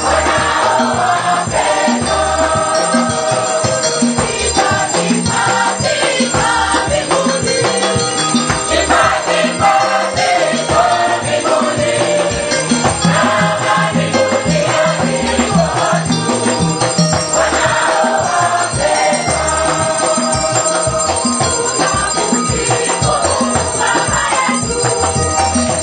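Lively church music: several voices singing together over a steady beat.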